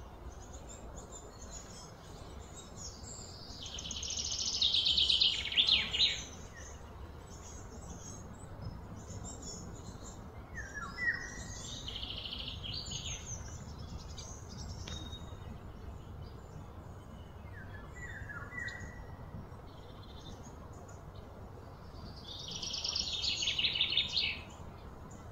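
Birds calling outdoors: short falling chirps now and then, and two louder rapid trilling swells that build for a couple of seconds and cut off, about four seconds in and near the end, over a steady low background hum.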